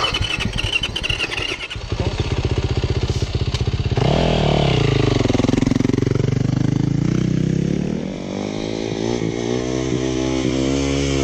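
Yamaha dirt bike engine running with a rapid putter, then revved and pulling away about four seconds in, its pitch rising and falling with the throttle. Near the end the pitch climbs again as the bike rides off.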